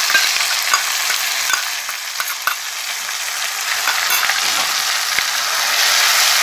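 Onion puree frying in hot oil in a kadhai: a steady, loud sizzle, with a few light clicks as it is stirred.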